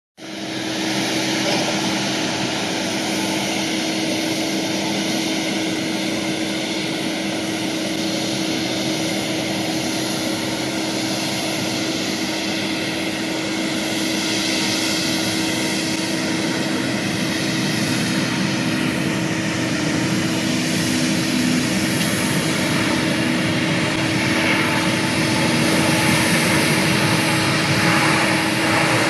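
Airbus A350-900's Rolls-Royce Trent XWB turbofans, a steady jet roar with a constant hum underneath, slowly growing louder during the takeoff run.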